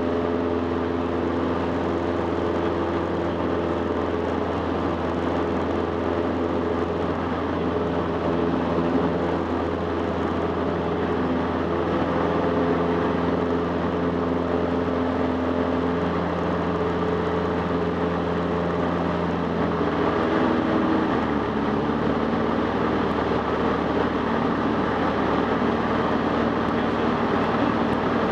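Cessna 150's Continental O-200 four-cylinder engine and propeller droning steadily in flight. The engine note drops slightly about two-thirds of the way through.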